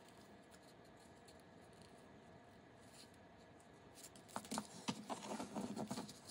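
Origami paper rustling and crackling as it is handled and creased, starting about four seconds in after a faint, quiet stretch.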